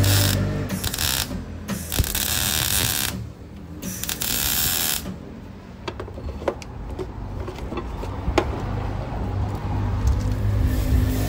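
Metalworking noise from the weld repair of a truck's cracked retarder pipe: a loud hiss that cuts in and out in several short stretches for the first few seconds, then quieter with scattered sharp clicks.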